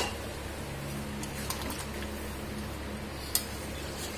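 Potol-and-prawn curry, freshly thinned with water, heating in an iron kadai on a gas burner: a steady low hiss with a hum under it, and a faint click about three and a half seconds in.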